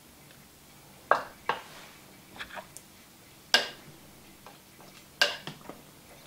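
Metal serving tongs and a ladle clinking against the crock of a slow cooker as chicken is lifted out. There are several sharp clinks, spread out, and the loudest comes about three and a half seconds in.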